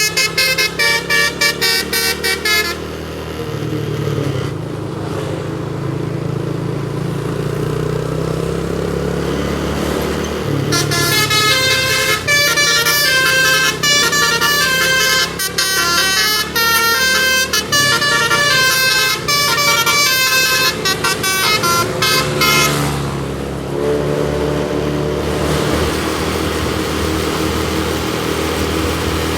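A tour bus's 'telolet basuri' musical air horn plays rapid tunes of stepping notes: a short burst at the start, then a longer tune from about ten seconds in to about two-thirds of the way through. Between them the bus's engine and road noise run on.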